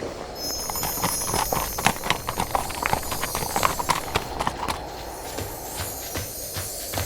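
A quick, irregular run of sharp clicks and knocks, thinning out after about five seconds, with a thin high whine above it.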